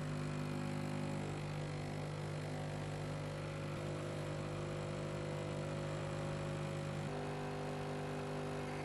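Espresso machine's pump humming steadily while a shot pours from the spouted portafilter into two glasses. The hum changes tone slightly about seven seconds in.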